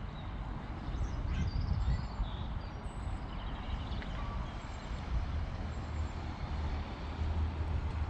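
Town ambience: a steady low rumble of traffic, with a few faint, short high chirps now and then.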